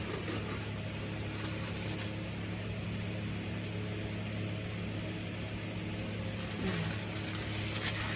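Steady low hum throughout, with brief rustles of a planner's wrapping being pulled off near the start and again near the end.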